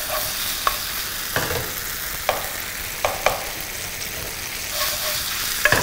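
Ginger-garlic-green chilli paste sizzling in oil in a nonstick frying pan, fried lightly without browning. A wooden spatula scrapes and stirs across the pan every so often.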